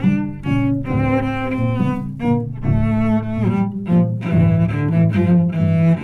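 Background music: a melody of held and moving notes on low bowed strings, cello-like in range.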